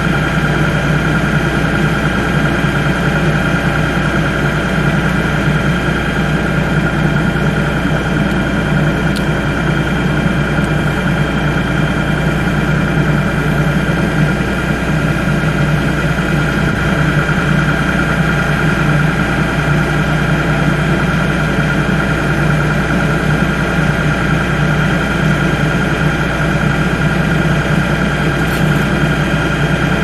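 Compact tractor's engine idling steadily, unattended, with an even hum that does not change.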